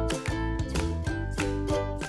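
Background music with a steady beat of short, sharp notes.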